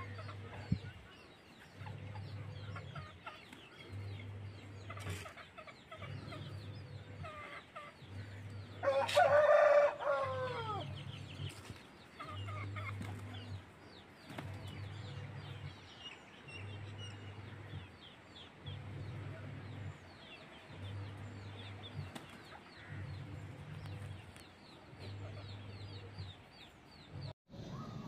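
Aseel rooster crowing once, a call of about two seconds with a falling end, about a third of the way in. Many short high chirps run underneath, with a low hum that pulses on and off about every two seconds.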